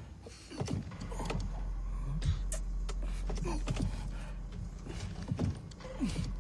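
Film sound effects of a vehicle: a low, steady engine sound starts about a second in, with scattered clicks and knocks over it.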